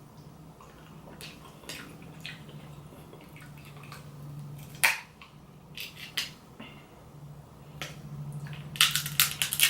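Close-up eating sounds while eating seafood: scattered wet mouth clicks and crunchy crackles, with a sharp crack about five seconds in and a quick run of clicks near the end, over a faint steady low hum.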